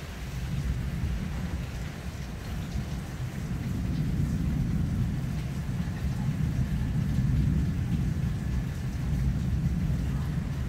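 Rain falling during a thunderstorm, under a deep rolling rumble of thunder that swells and fades.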